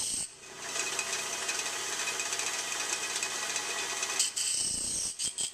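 Electric disc sander grinding a metal kerosene-lamp wick dome against its abrasive disc: a steady rasping hiss over the motor's hum, as metal is ground away and sparks fly. The grinding drops briefly just after the start and breaks off a few times near the end.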